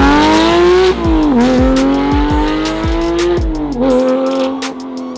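Porsche 911 GT3 flat-six through a titanium race exhaust, accelerating hard: the revs climb, drop sharply at an upshift about a second in and again near four seconds, then climb and hold.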